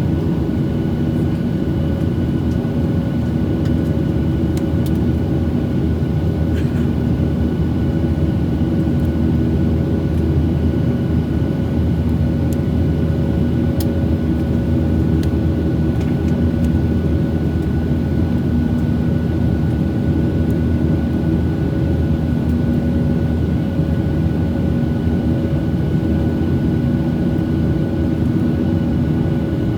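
Steady cabin noise of a Boeing 737-800 airliner with its CFM56 jet engines running: an even rushing drone with several faint held tones, and a few light clicks.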